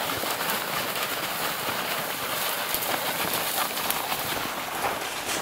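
Dry reeds rustling and crackling against clothing and gear, with footsteps crunching on snow, while walking a narrow path through a frozen reed bed. The sound is a dense, steady crackle full of small ticks.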